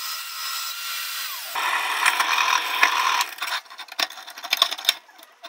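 Bandsaw running and cutting through a strip of 16 gauge stainless steel. The cut grows louder and coarser about a second and a half in and stops after about two seconds, followed by a run of short sharp clicks and scrapes.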